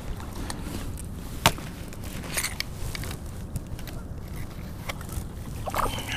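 Scattered light clicks and knocks of handling the fish and gear aboard a plastic kayak, over a steady low rumble. The sharpest click comes about a second and a half in.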